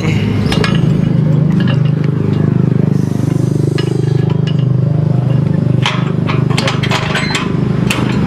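Metal clinks, knocks and scrapes from an iron house gate being shut and latched by hand, a cluster of them coming in the last couple of seconds, over a steady low rumble.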